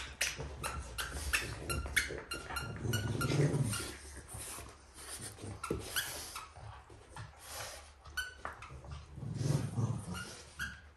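Two French bulldogs playing tug with a chew toy, making a run of short snuffling grunts. There are two longer low growls, about three and a half and nine and a half seconds in.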